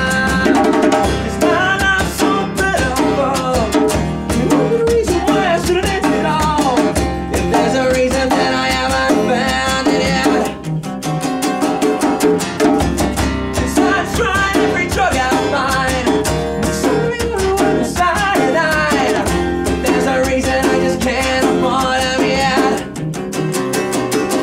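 Live unplugged rock band playing, led by acoustic guitar.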